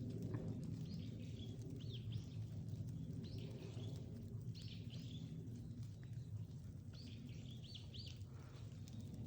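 Small birds calling in short, quick chirps, coming in little clusters every two to three seconds, over a steady low rumble.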